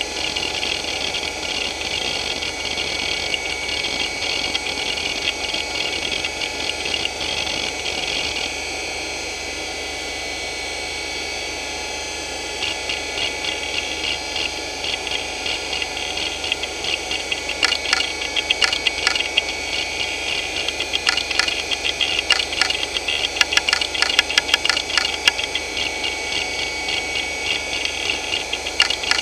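Hitachi DK225A-14 2.5-inch two-platter hard drive spinning at 4464 rpm with a steady high whine while its heads seek in rapid ticking chatter under a benchmark. The chatter eases off for a few seconds about a third of the way in, then comes back as sharper, louder clicks. This is a drive the owner calls very unhealthy.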